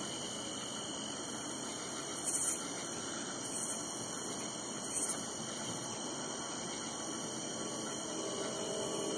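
Steady high-pitched chorus of crickets and other summer insects, with three short louder calls about a second and a half apart. No thunder is heard.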